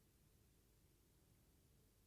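Near silence: faint steady low hum of room tone.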